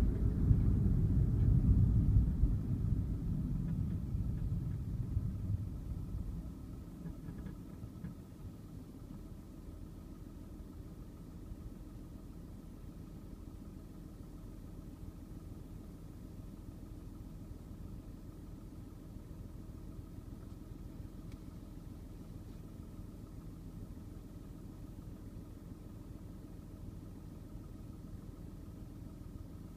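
Inside a car: low road and engine rumble that dies away over the first six seconds or so as the car slows to a stop, then the engine idling steadily.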